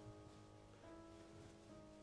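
Faint background music: soft sustained notes, the chord shifting about a second in and again near the end.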